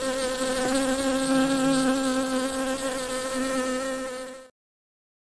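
Paper wasps buzzing in a steady drone that cuts off suddenly near the end.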